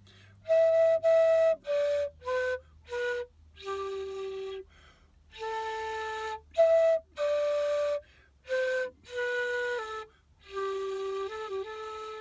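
Transverse bamboo flute played slowly by a learner: a simple tune of single held notes, one after another with short breaks between them, with a breathy edge to the tone.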